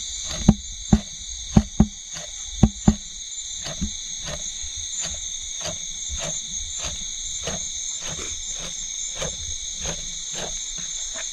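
Steady high-pitched chorus of forest insects, pulsing at a regular beat. In the first three seconds, six sharp knocks of a knife scoring a whole piranha into thin cuts.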